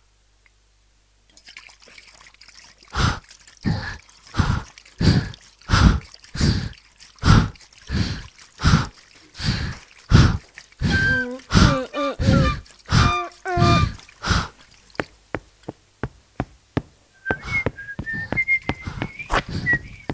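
Homemade sound effects imitating a cartoon steamboat: a rhythmic chugging puff about three times every two seconds, with a few pitched, wavering toots in the middle. Near the end a person starts whistling a tune.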